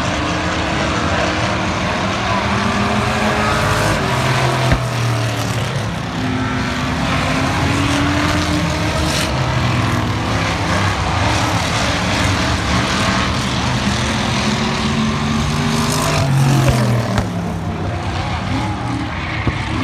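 A field of race cars' engines running laps around an oval track, several engines overlapping, their pitch rising and falling as the cars accelerate and pass. The loudest moment comes about sixteen seconds in, as one engine climbs in pitch.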